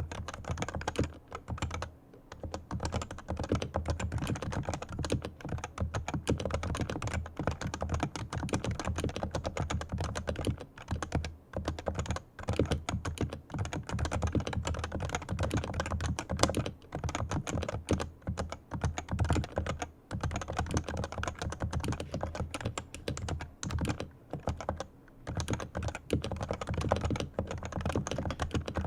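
Fast, continuous typing on a fully lubricated Leopold FC980C keyboard with Topre electro-capacitive switches: a dense stream of keystrokes with a few brief pauses.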